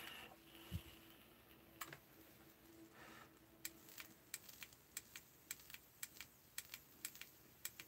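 Faint, irregular clicking like typing on a keyboard, about three taps a second through the second half. Before it there is a soft hiss of a draw on a vape mod.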